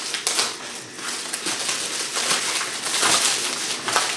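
Packaging rustling and crinkling in uneven bursts as it is handled and pulled open.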